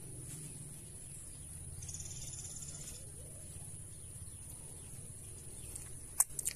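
Steady high-pitched insect chorus, with a fast trilling call for about a second around two seconds in. A few sharp clicks near the end are the loudest sounds.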